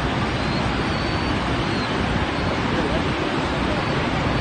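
Niagara Falls' water pouring down close by: a loud, steady rush of noise with no letup.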